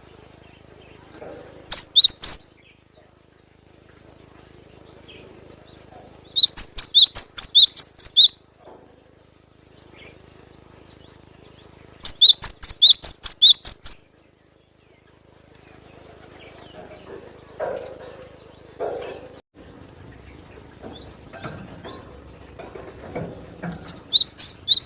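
Cinereous tit (gelatik batu) calling in loud bursts of rapid, sharp high notes, four bursts with pauses between, and fainter chirps in the gaps.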